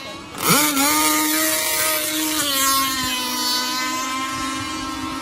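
Racing mini speedboat's outboard engine running at high revs. It comes in suddenly and loud about half a second in, its pitch rising sharply and then holding nearly steady, with a slight drop partway through. A hiss, likely spray, runs over the first few seconds.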